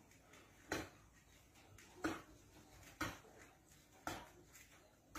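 Four sharp knocks about a second apart, each ringing briefly, from hands striking inside a large clay pot.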